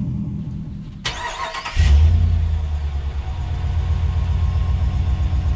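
2019 Ram 1500's 5.7 L Hemi V8 on its stock exhaust, cold started: about a second in the starter cranks briefly, the engine catches with a loud flare near the two-second mark, then settles into a steady idle.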